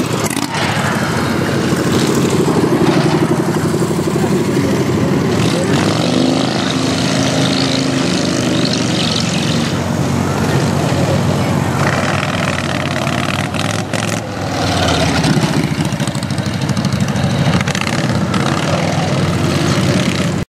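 Modified racing lawn tractor engines running hard at speed around a dirt track, loud and continuous, with a short dip in level about two-thirds of the way in.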